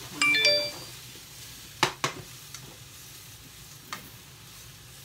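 Cabbage sizzling in a frying pan as it is stir-fried. A short ringing clink comes near the start, and there are a few sharp clicks of the utensil against the pan, twice around two seconds in and once near four seconds.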